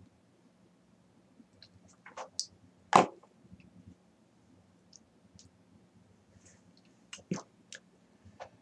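A handful of short, faint clicks scattered over a quiet room, the loudest one about three seconds in and a few more near the end.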